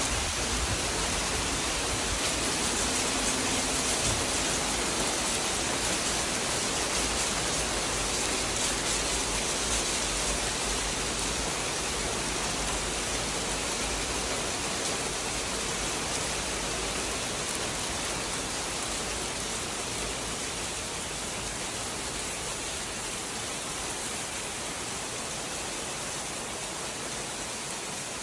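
Heavy rain mixed with graupel falling on pavement and surfaces, a steady dense hiss of drops and pellets that eases slightly toward the end.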